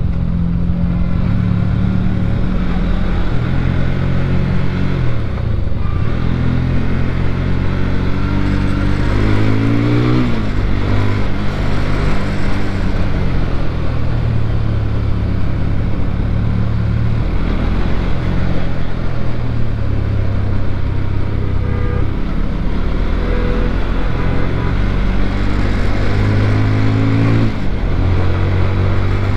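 Motorcycle engine running under way, heard from the rider's seat over wind noise. Its pitch climbs as it accelerates and falls back sharply about ten seconds in, and again near the end.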